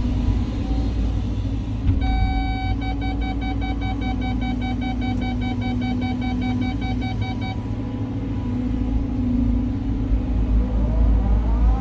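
Cat 323 hydraulic excavator's diesel engine running with a steady low rumble. About two seconds in, an electronic beeper sounds one long tone and then rapid beeps, about four a second, for some five seconds; near the end the engine pitch rises and falls as the machine works.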